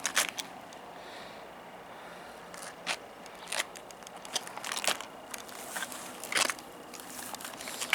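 A pet crunching dry food: scattered sharp crunches and clicks at irregular intervals.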